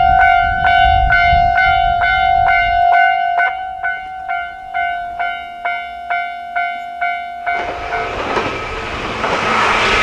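Japanese railway level-crossing alarm ringing in a steady, evenly repeated ding, about two and a half strikes a second. About three-quarters of the way in, the noise of an approaching train rises and drowns it out.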